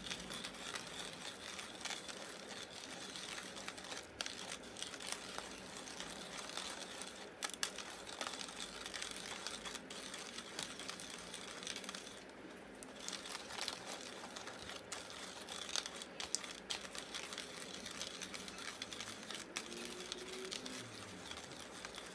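Cheap ceramic-burr hand coffee grinder being cranked, crushing beans at its finest setting: a steady crunching crackle with scattered clicks and a short lull about twelve seconds in.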